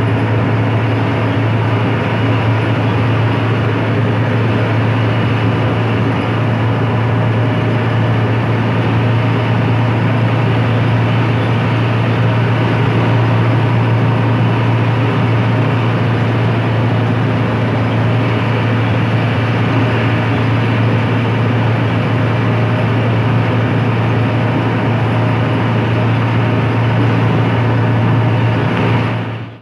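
Hino AK8 front-engine bus under way, its diesel engine giving a steady low drone over road noise.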